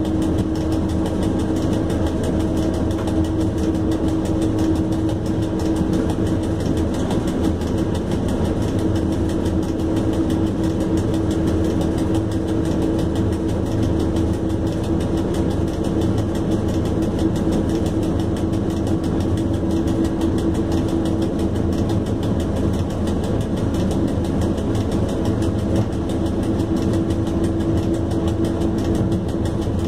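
Steady running noise inside the cab of an ET22 electric freight locomotive under way on the main line, with a constant hum over the rumble of the wheels on the rails.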